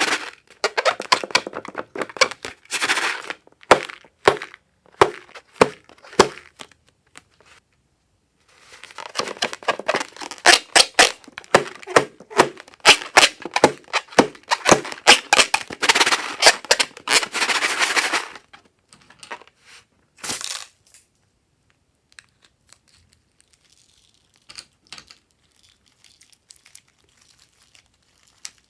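Slime being worked by hand, with sticky crackling and clicking in two long dense stretches, then only a few scattered clicks near the end.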